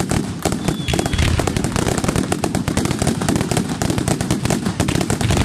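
Fireworks going off in a dense barrage: many rapid, overlapping bangs, several a second, without a break.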